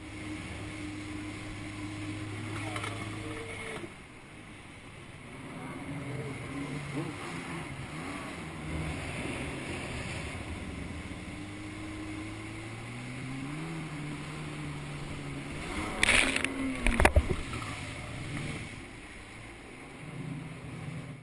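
Jet ski engine running under throttle, its pitch steady, dropping about four seconds in and climbing again later, over the rush of water and spray. A few loud bursts of noise come near the end.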